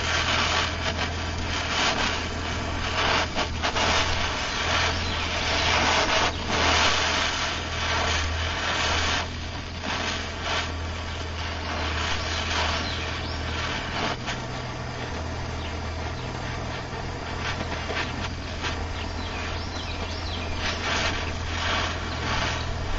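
Handheld gas torch flame hissing steadily as it heats the spine of a carbon-steel knife blade to draw a differential temper, with a low steady hum underneath.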